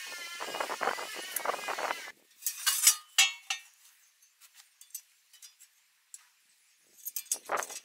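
Steel clinking and clanking as a cut steel plate and a gas cylinder are moved and set down. The sharpest clinks come between two and four seconds in, after a steady noise, and a few faint ticks and a last short clatter follow.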